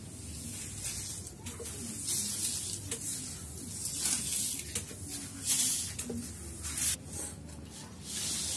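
Swishing and rustling of a floor sleeping mat being lifted, slid and straightened on a tiled floor, in several separate swishes a second or so apart.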